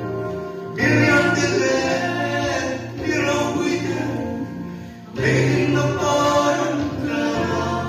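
A gospel song in Mizo sung through a microphone, over an accompaniment holding steady low notes. The singing comes in loudly about a second in, dips briefly, and comes back strongly at about five seconds.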